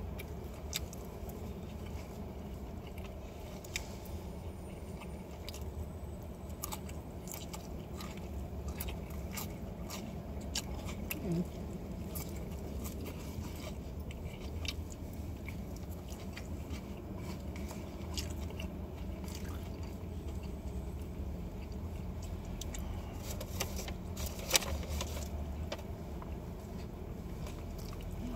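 A person chewing and eating food with a fork close to the microphone, with scattered short mouth and fork clicks, over a steady low hum inside a car's cabin.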